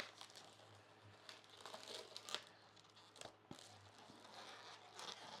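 Faint rubbing and crinkling of latex twisting balloons being handled and twisted, with scattered small clicks.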